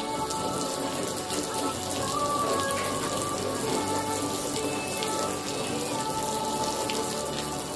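A stream of water splashing onto a freshly waxed car hood and running off the paint, a steady hiss, under soft background music with held notes.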